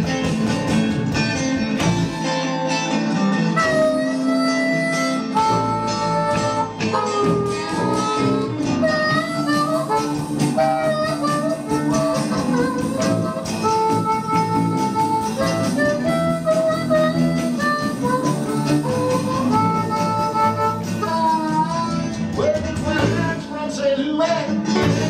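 A rock band playing live with electric guitars and keyboard, a lead melody of held notes over a steady accompaniment.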